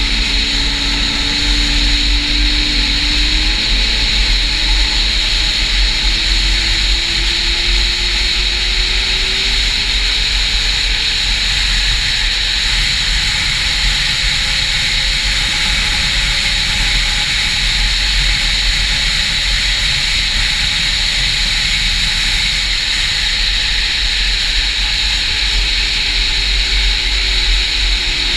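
Snowmobile engine running at trail speed, its pitch climbing slowly through the middle and easing back near the end, over a steady low rumble and a high whine.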